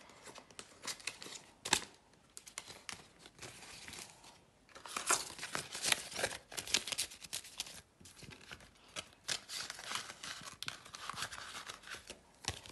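Jamaican dollar banknotes being counted and flicked through by hand: a run of quick papery rustles and snaps, busiest about five seconds in and again around ten seconds.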